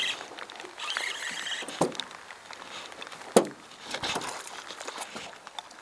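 Spinning reel being cranked in short spells as a hooked fish is reeled in to the boat, with two sharp knocks, the louder about three and a half seconds in.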